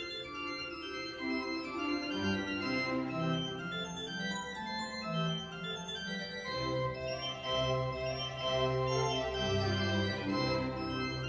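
Background organ music: sustained chords over a slowly moving bass line, swelling a little in the second half.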